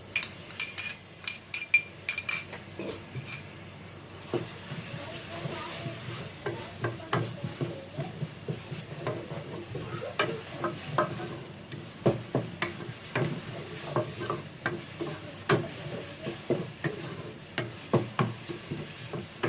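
Ginger-garlic paste going into onions frying in oil: a few ringing clinks of a metal spoon in the first few seconds, then steady sizzling as a spoon stirs and scrapes around the pot with irregular knocks.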